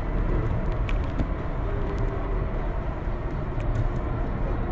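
Steady low rumble of road and engine noise heard inside a moving road vehicle's cabin, with a few faint clicks.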